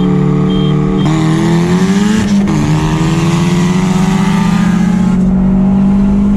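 Car engine going from a steady cruise to full throttle about a second in, its pitch climbing hard, dropping at a gear change partway through, then climbing again before easing off near the end: a wide-open-throttle pull in a roll race.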